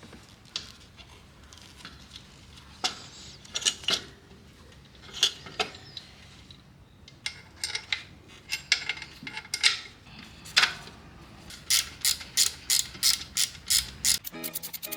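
Hand ratchet wrench clicking as bolts are tightened, in scattered short strokes at first and then a steady run of clicks, about three a second, near the end.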